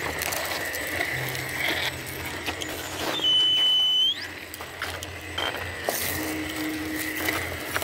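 Axial Ryft RBX10 RC rock crawler's electric motor and drivetrain whining steadily as it crawls over rocks, with scattered clicks. About three seconds in a louder high-pitched whine holds level for about a second, then sweeps sharply up and cuts off.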